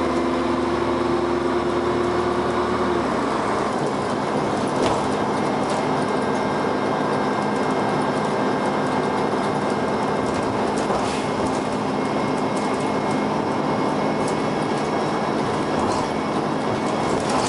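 Onboard sound of a Dennis Arrow double-decker bus under way: the diesel engine and ZF automatic gearbox running with a steady hum. About three seconds in, a steady whining tone cuts off and the engine note changes. A few short knocks or rattles from the bus come later.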